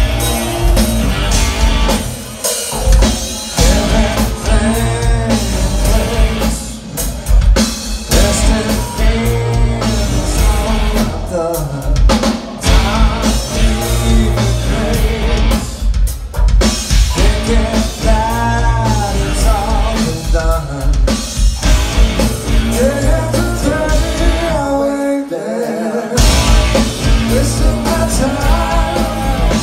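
Live rock power trio (electric guitar, bass guitar and drum kit) playing loudly, with the guitarist singing lead, heard from the audience. About 25 seconds in the bass and drums drop out for about a second before the band comes back in.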